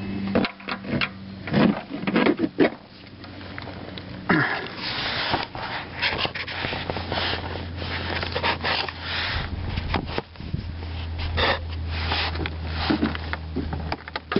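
Irregular clicks and knocks of a ratchet and 17 mm socket being fitted to and worked on a car's oil drain plug, mixed with rubbing handling noise, over a steady low hum.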